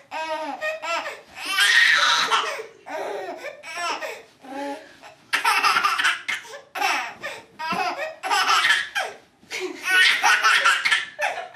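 A baby of about seven and a half months laughing in repeated bursts, with short pauses between them.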